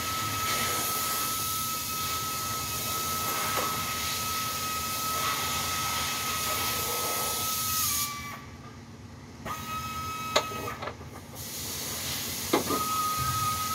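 Steady hiss with a steady high whine, which cuts out for about a second and a half past the middle and again briefly. Two sharp clicks come near the end.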